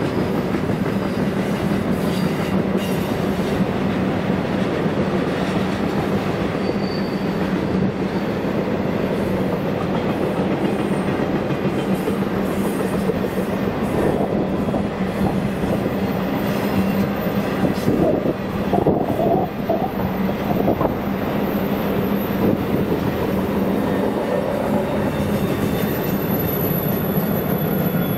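Intermodal freight cars, double-stack container wells and trailers on flatcars, rolling past steadily. The wheels and cars keep up a continuous rumble and clatter on the rails.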